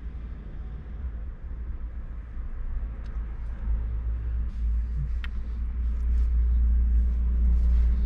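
Low, steady rumble of a car's idling engine heard inside the cabin, growing louder in the second half, with a few faint clicks as a plastic shaker bottle is handled.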